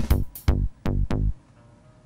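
Electronic background music with a steady beat, which drops out briefly near the end.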